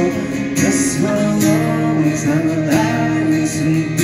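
Acoustic guitar strumming a song accompaniment, with a man singing a wordless line over it, played through a small busking speaker.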